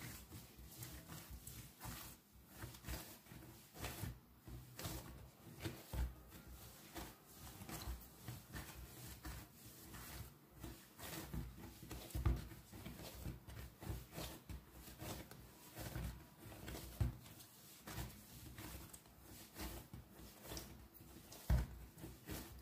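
Dough being kneaded by hand on a countertop: soft, irregular pressing, rubbing and slapping, with a few louder thumps of the dough against the counter.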